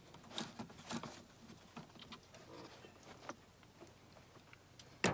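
Faint scattered clicks and rustles of hands handling a plastic engine intake pipe while seating it onto the turbo inlet, with a sharper click near the end.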